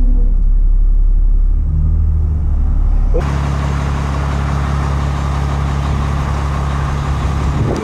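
Motorhome engine running with a low rumble, its pitch rising briefly about one and a half seconds in. About three seconds in the sound changes suddenly to a steady low engine hum with a hiss over it.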